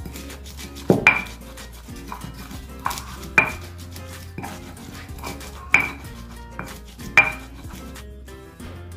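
Stone pestle crushing and grinding red chilies and salt in a volcanic-stone mortar (Indonesian cobek and ulekan): stone scraping on stone, with about five sharp stone-on-stone clacks at uneven intervals.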